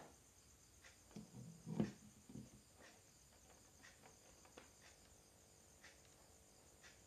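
Near silence broken by faint handling noise: a few soft knocks and clicks as hands move the plastic speaker box and its cable, the loudest about two seconds in.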